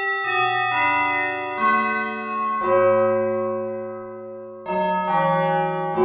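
Arturia MicroFreak synthesizer playing a slow line of sustained notes and chords through a Behringer DR600 digital reverb pedal. Each new note sounds over the slowly fading tail of the one before.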